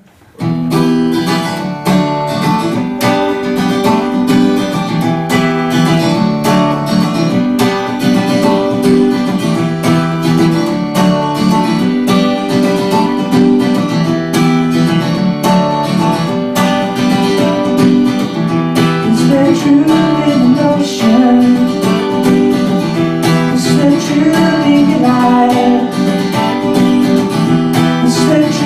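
Steel-string acoustic guitar played as an instrumental song intro, chords sounding in a steady rhythm, coming in just after the start.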